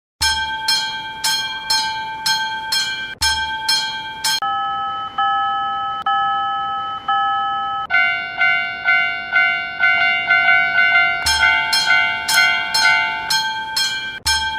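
Japanese level-crossing (fumikiri) warning alarms ringing in a steady repeating ding-ding, changing between several crossing alarm tones: a bright bell about twice a second, then a lower tone about once a second, then a quicker chime, then the bright bell again near the end.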